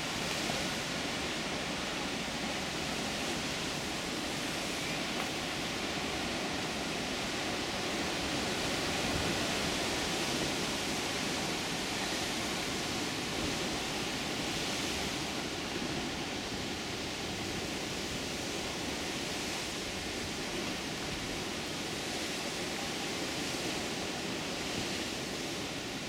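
Ocean surf breaking on rocks: a steady, even wash of water noise with no distinct single crashes.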